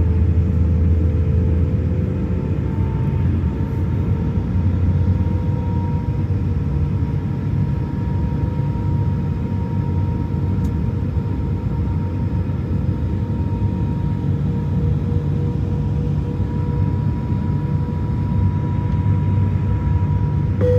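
Cabin noise of an Airbus A350's Rolls-Royce Trent XWB engines during the takeoff roll: a steady, loud low rumble, with an engine whine that climbs slowly in pitch.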